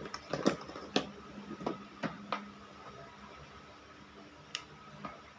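Sharp clicks and knocks of hand tools and small parts being handled on a plywood workbench: a quick run of them in the first couple of seconds, then two more near the end as a wire is worked in a stripper. A faint steady hum runs underneath.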